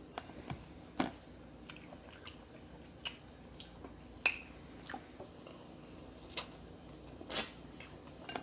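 Close-up mouth sounds of seafood boil being eaten: short, irregular chewing, biting and lip-smacking clicks, about a dozen spread across the stretch.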